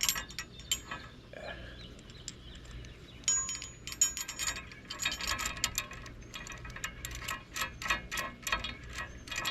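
Steel anchor swivel parts clinking and ticking against each other as the swivel's bolt is pushed through and worked by hand. The clinks come in an uneven run of quick clicks, thickening about three seconds in, with a short ring of metal among them.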